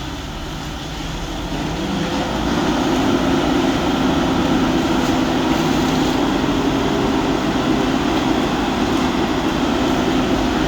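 A fire truck's engine speeds up about two seconds in, then holds a steady, loud drone at high revs, as when it is driving the truck's water pump.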